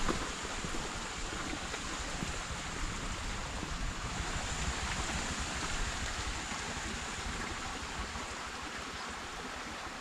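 Wind outdoors: a steady rushing hiss, with low, uneven buffeting of wind against the microphone.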